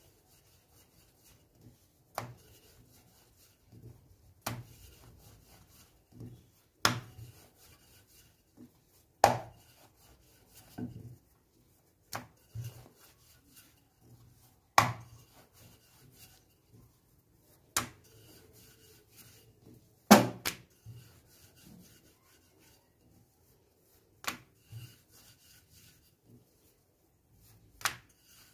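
Wooden rolling pin rolling out a stuffed paratha on a floured board: soft rubbing as it rolls, broken by sharp wooden knocks of the pin against the board every two to three seconds.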